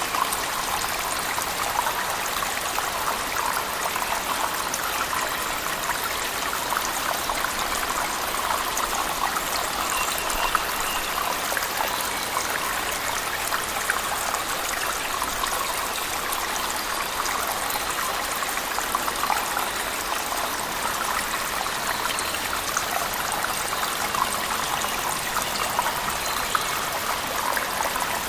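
Waterfall in a cave mixed with heavy rain: a steady, even rush of falling water that does not change over the whole stretch.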